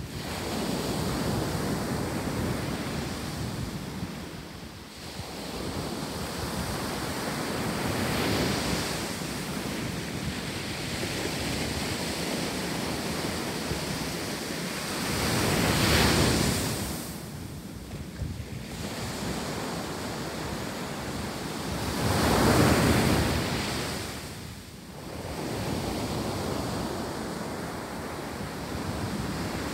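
Ocean surf breaking and washing on a sandy beach, with wind on the microphone. The wash rises and falls in slow swells, and two louder waves break in the second half.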